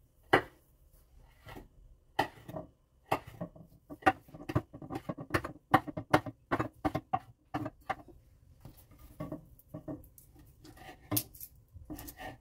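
Chef's knife slicing small red chillies on a wooden cutting board: a run of sharp knife taps against the board, a few at first, then quick and close together in the middle.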